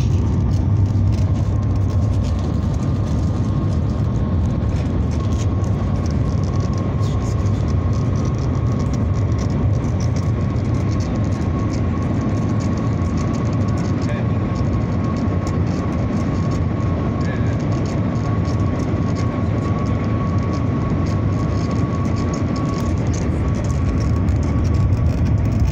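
Cabin noise of the Shanghai Maglev train running at about 389 km/h: a steady low rumble with a thin, steady high whine over it.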